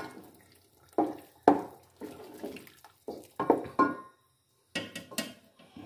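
A spoon stirring thick, wet ground-lentil paste into gravy in a metal pot. The strokes are short, wet and sloppy, with scrapes against the pot, and come irregularly with short pauses between them.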